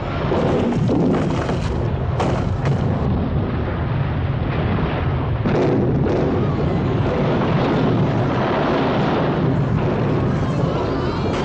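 Film sound effects of an earthquake aftershock: a continuous deep rumble with repeated crashes of concrete and debris falling, the heaviest crashes in the first few seconds and again about halfway through.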